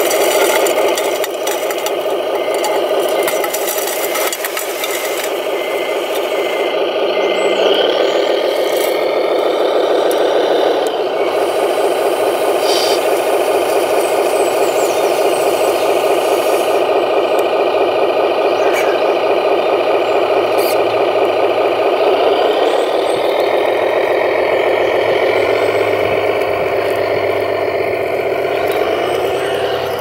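Simulated diesel engine sound from an RC model truck's sound module, played through its small onboard speaker, as the radio-controlled tipper truck drives up a gravel slope. The revs rise and fall about eight seconds in and again over the last several seconds, with some rattling throughout.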